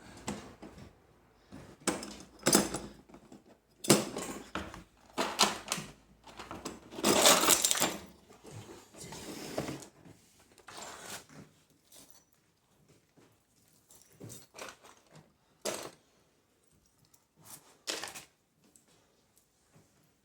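Tools and small hardware being handled and put down: a string of clatters and knocks, with a longer rattling stretch about seven seconds in, then fewer, sparser knocks.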